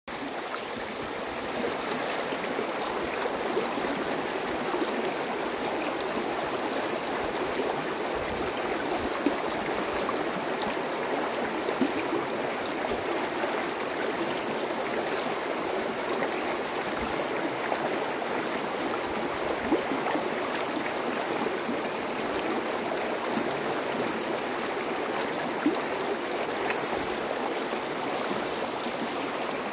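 Shallow mountain river rushing over stones, a steady rush of water with a few brief louder splashes.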